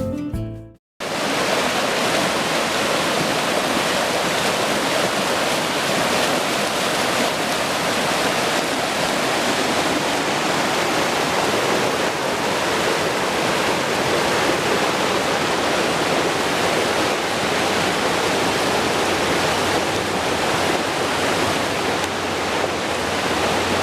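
Steady rush of a fast-flowing mountain stream. It begins about a second in, just after guitar music fades out, and holds an even level throughout.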